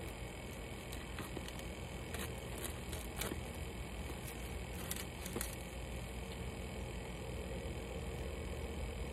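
Steady low background hum, with a scattering of faint scratches and clicks from fingernails picking at the seal of a cardboard phone box, mostly in the first half.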